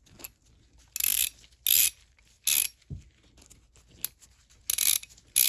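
ProAmerica 5151 3/8-inch-drive flex-head ratchet with a 41-tooth mechanism being worked back and forth: about five short runs of rapid pawl clicking. The freshly reassembled mechanism is ratcheting properly.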